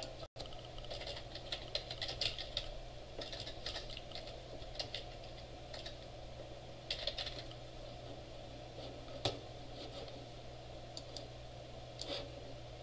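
Typing on a computer keyboard in short bursts of keystrokes, with a single sharper click about nine seconds in. A steady low hum runs underneath.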